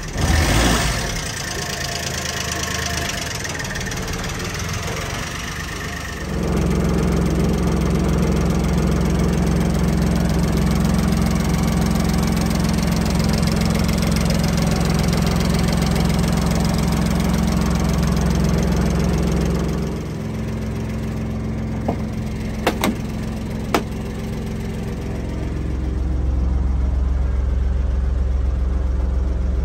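Honda Acty mini truck's small three-cylinder engine idling steadily. It swells louder and deeper from about six seconds in until about twenty, then again near the end. There is a brief loud noise just after the start and a few sharp clicks a little past the middle.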